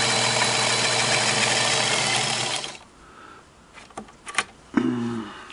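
Singer Model 237 sewing machine running at a steady speed, stitching a straight seam through double-layered upholstery fabric, then stopping abruptly a little under three seconds in. A few sharp clicks and a short hum follow near the end.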